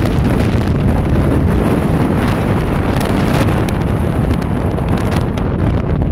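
Wind blowing across a phone's microphone, a loud, steady low rumble.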